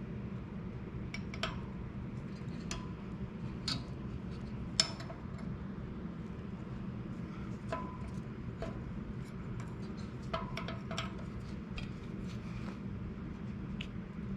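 Scattered light metallic clicks and clinks of tools and small parts being handled while working on a bicycle hub, the sharpest about five seconds in, over a steady low background hum.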